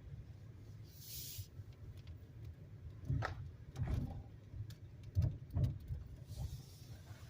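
Steady low rumble of a car driving, with a short hiss about a second in and several knocks and bumps between about three and six seconds in.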